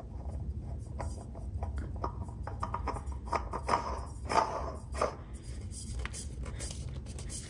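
OEM Toyota oil filter being spun by hand onto the threads of an oil filter sandwich plate: irregular light scrapes and clicks of hand and metal on the filter can, a few louder ones midway, over a low steady hum.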